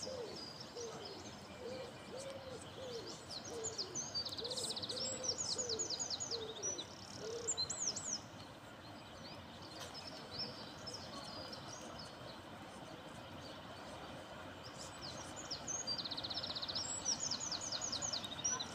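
Birdsong: a pigeon cooing in a low repeated rhythm for the first seven seconds or so, and a small songbird singing the same trilling phrase twice, once about three seconds in and again near the end.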